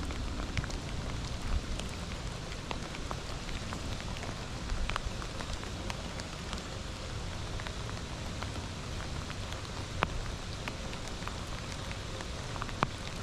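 Rain falling on a lake: a steady hiss with scattered sharp ticks of drops landing close by.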